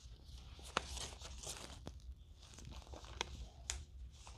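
Bible pages being turned: faint rustling of thin paper with scattered light clicks and crackles.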